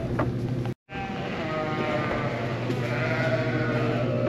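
Lambs bleating, several calls overlapping at once, over a steady low hum.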